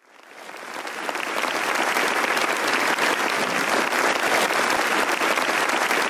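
A large audience applauding, many hands clapping at once, fading in over the first two seconds and then holding steady.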